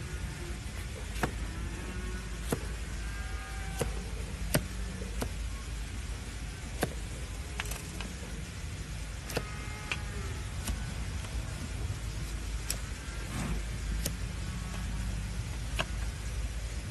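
Large flat hoof-trimming blade paring through a donkey's overgrown hoof horn against a wooden block, giving a sharp click with each cut, every one to two seconds. A steady low rumble runs underneath.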